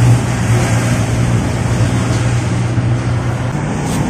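Steady low machine hum with an even pitch and no change in level.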